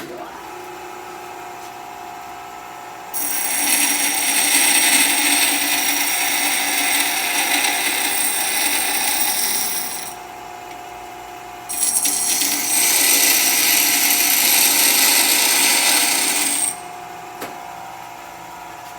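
Bench grinder switched on and running with a steady hum. Twice, for about seven and five seconds, a workpiece is ground against the spinning stone wheel, a loud harsh grinding with a high whine, and the motor runs on alone between the passes and afterwards.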